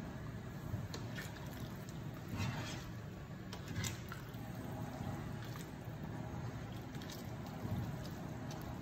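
A slotted spatula stirring chicken stew in a thin, wet sauce in a frying pan, with a few short scrapes and clicks against the pan over a steady low hum.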